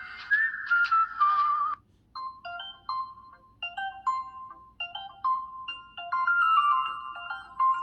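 LG Extravert 2 (VN280) cell phone playing its built-in ringtones through its small speaker. A smooth, gliding melody stops just under two seconds in. After a brief pause, another ringtone begins: a repeating tune of short, clipped electronic notes.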